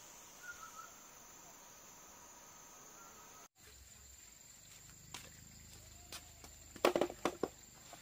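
A steady high insect drone, broken off briefly about halfway through. In the second half a few sharp knocks and crunches come, with the loudest cluster about a second before the end.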